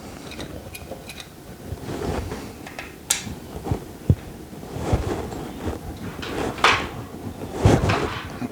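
Hand tools and metal and plastic parts handled during the teardown of an Echo 4910 chainsaw: scattered clicks, knocks and scrapes, with sharper clicks about three and four seconds in.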